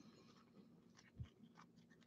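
Near silence, with faint clicks and rustles of trading cards in plastic holders being handled, and a soft low thump about a second in.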